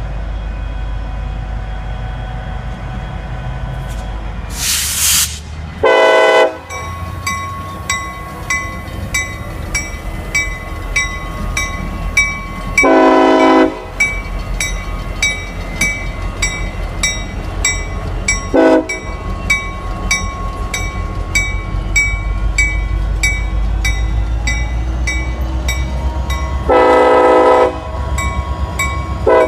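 Diesel freight locomotives pulling out with a steady low engine rumble. The lead SD50-2's K5LLA five-chime air horn sounds five blasts: two longer ones about 13 and 27 seconds in, and shorter ones around 6 and 19 seconds and at the very end. From about 7 seconds in, a bell rings evenly about once every 0.7 seconds.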